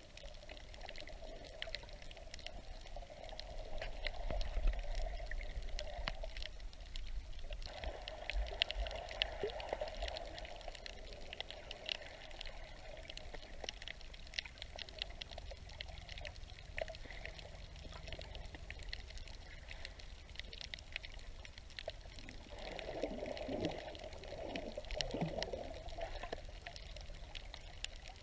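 Underwater sound heard through a submerged camera: muffled water movement with a steady crackle of many tiny clicks. The water noise swells briefly a few seconds in and again near the end.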